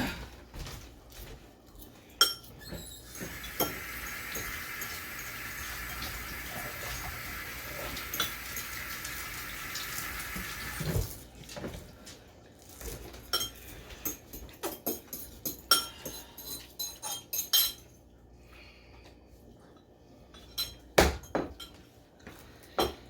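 Utensils clinking and scraping against noodle bowls during eating, in scattered sharp clicks that come thick and fast in the second half. A steady hiss runs for several seconds, starting a few seconds in.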